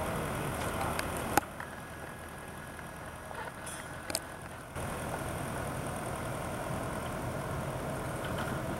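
Steady hum of machinery running, like an idling engine, with a sharp click about a second and a half in; the hum drops for a few seconds and then comes back at its earlier level.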